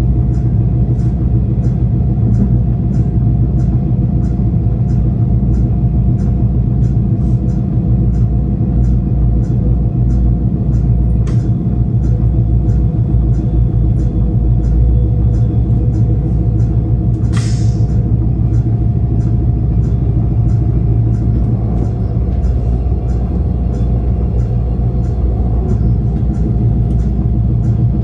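Stadler GTW diesel commuter train running between stations, heard from inside the passenger car: a steady low rumble with light regular ticking about twice a second. A brief sharp noise comes about two-thirds of the way through.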